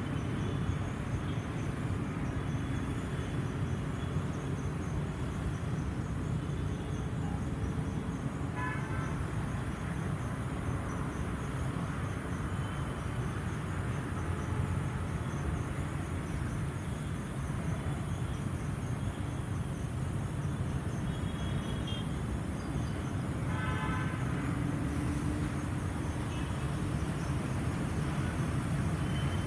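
LG air conditioner outdoor unit running: a steady low whir from its fan, even throughout.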